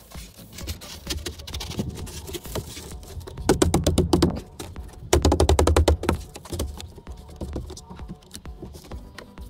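Extruded polystyrene foam board slid and pressed into place by hand, scraping against the neighbouring boards in two short bursts of rapid grating strokes, about three and a half and five seconds in, with softer knocks between.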